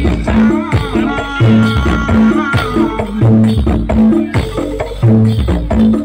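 Bantengan accompaniment music: a Javanese gamelan-style ensemble playing a steady repeating beat of pitched gong and drum strokes, with a wavering high melody line over it.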